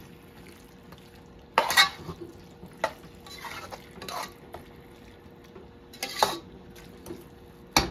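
Metal spoon stirring and scraping squash and tomatoes in an aluminium pot: a handful of separate scrapes and clinks, the loudest about two seconds in and again about six seconds in.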